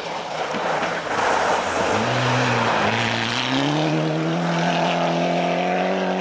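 Mitsubishi Lancer rally car at full speed on a snow stage, with a hiss of tyres and thrown snow as it comes past. Its engine note dips briefly about two seconds in, then rises steadily as it accelerates away.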